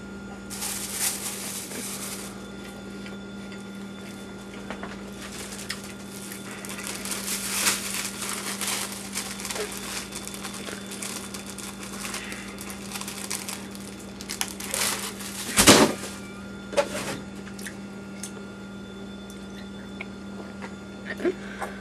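Rustling and handling noises from something worked in the hands, with a sharp knock about two-thirds of the way in and a few smaller ones near the end, over a steady low hum.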